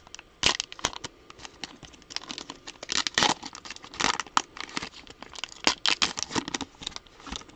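A plastic-wrapped trading-card pack being torn open, the wrapper crinkling in a run of irregular crackles and rustles.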